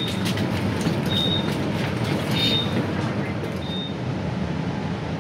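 Interior of a commuter train standing at the platform: a steady low hum from the train, with a short high electronic door-warning beep sounding four times, about every 1.2 seconds.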